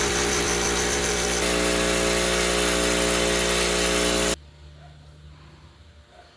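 Mini wood lathe's small electric motor running steadily at speed, then cut off abruptly about four seconds in.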